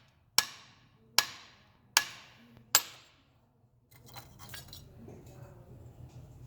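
Four sharp hammer blows on a mold around a fresh bronze casting, evenly spaced about 0.8 s apart, each ringing briefly. From about four seconds in, light clinking and scraping as the mold breaks away from the bronze.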